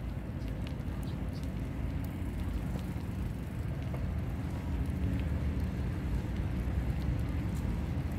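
Steady low rumble of a bicycle on the move: wind on the microphone and tyres rolling on an asphalt path, with a few faint ticks.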